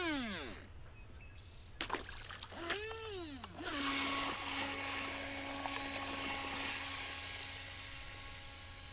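RC jet boat's electric motor and jet pump: a whine falling away at the start, a click about two seconds in, then a quick throttle blip with the pitch rising and falling. From about three and a half seconds it runs at a steady pitch with a hiss of water spray from the jet, slowly fading as the boat pulls away.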